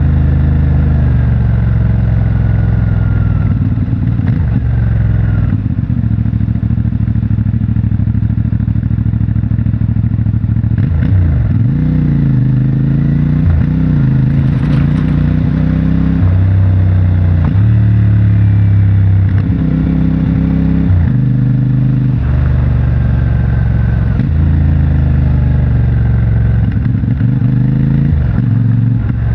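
CFMOTO 450MT motorcycle's parallel-twin engine through its stock exhaust, riding along with engine speed rising and falling and several gear changes.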